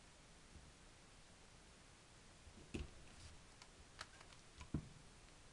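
Big Bite hand punch clacking as its jaws are squeezed shut to punch holes through paper envelopes: three short sharp clicks in the second half.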